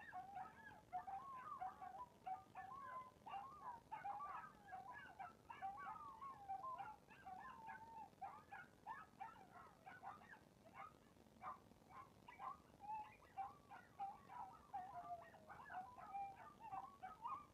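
Chihuahua whining in a long, unbroken run of short, wavering high-pitched whimpers and squeaks.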